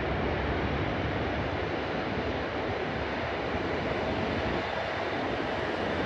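Steady, even roar of a distant jet airliner's engines as it moves down the runway, blended with road traffic noise.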